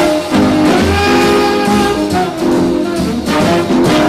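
Theme music of a television programme, led by brass such as trumpets and trombones over a repeating bass line.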